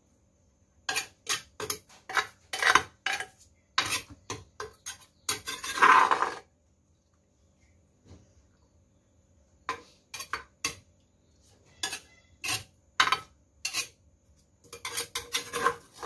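Metal spoon clinking and scraping against ceramic dishes as papaya salad is spooned onto a plate. Clusters of sharp clinks, a longer, louder burst about six seconds in, a pause of about three seconds, then more clinks.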